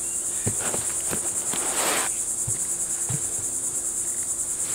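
Steady, high-pitched chirring of insects throughout. Over it, bubble wrap and packing in a cardboard box are handled: a crinkling rustle about one and a half to two seconds in and a few soft knocks.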